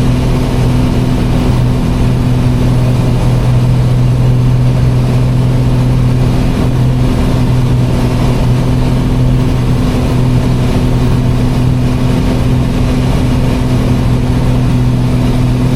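Twin piston airplane engines and propellers droning steadily in cruise, heard in the cockpit: a constant low hum over a wide rushing noise.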